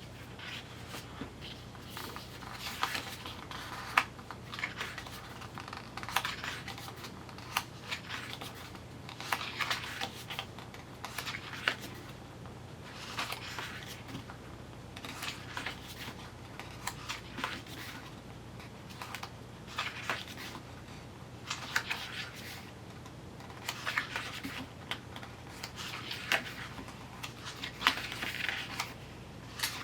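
Hands handling a CD album's paper and card contents: irregular rustling, sliding and crinkling with sharp little clicks and taps now and then, over a faint steady low hum.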